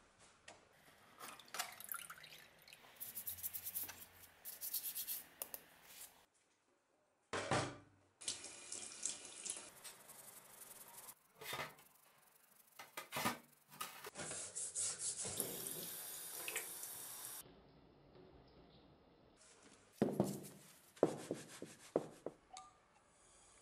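Water running and splashing in a stainless-steel sink as a rusty steel axe head is washed of its cleaning agent, in several short cut clips. Sharp knocks and scrapes of the axe head come in between, a few of them near the end.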